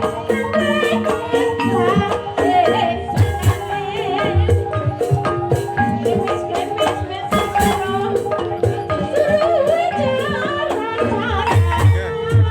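Live Banyumasan gamelan music accompanying an ebeg dance: mallet-struck keyed instruments playing a repeating melody over regular drum strokes, with a singer's wavering vocal line.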